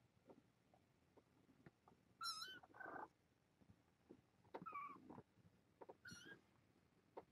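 Young kittens, about three and a half weeks old, mewing faintly: three short, wavering high-pitched mews, about two, four and a half and six seconds in.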